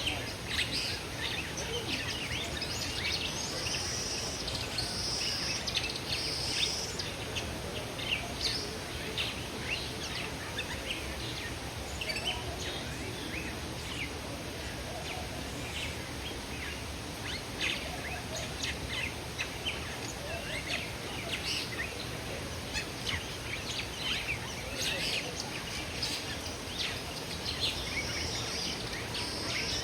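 Many caged birds chirping and calling at once, short high chirps coming thick and fast over a steady background noise, with a few longer high calls a few seconds in.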